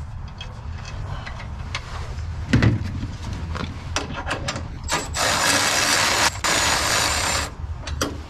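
Tool clicks and metal knocks while fitting the panhard rod's bolts, with one heavier thump about two and a half seconds in. Then a power tool runs in two bursts of roughly a second each, running the bolts down snug before final torque.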